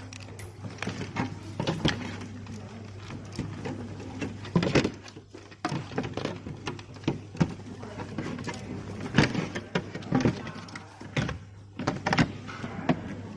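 Irregular clicks and knocks of parts being handled, over a steady low hum.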